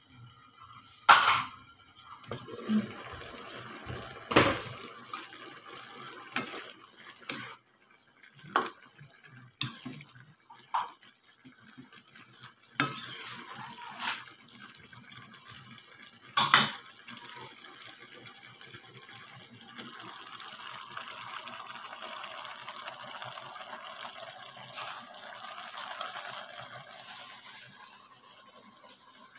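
A spatula clanking and scraping in a wok as string beans and chicken liver are stirred, about ten sharp knocks in the first half, with the pan lid taken off at the start. After that comes a steady simmering hiss of the dish cooking.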